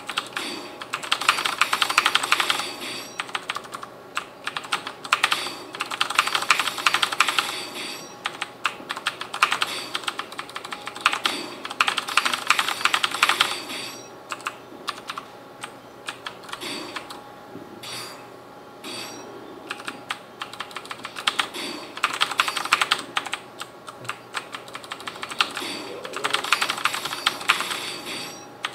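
Mechanical keyboard with clicky Cherry MX Blue switches being typed on: quick runs of key clicks in spells of a couple of seconds, with sparser keystrokes in between.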